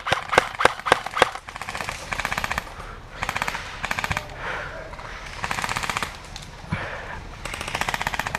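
Airsoft guns firing: a few loud single shots in the first second or so, then several short, rapid full-auto bursts, each lasting under a second.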